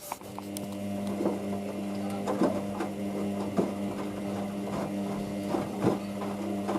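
Hoover DYN9144D3X washing machine running its wash cycle: a steady motor hum with the drum turning, and a thump every half-second to second as the wet load, which includes a pair of shoes, tumbles. A sharp click right at the start.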